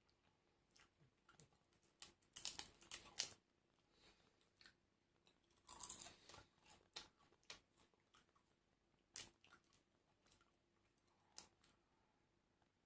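Close-miked eating of crisp fried food: crunchy bites and chewing in two short crackling bursts, about two and six seconds in, with scattered single crunches between.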